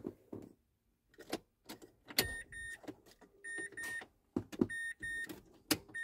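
Mazda 3's dashboard warning chime giving a string of short, high beeps, singly and in pairs, from about two seconds in, among sharp clicks of the ignition key and controls being worked. No engine note: the car is not starting.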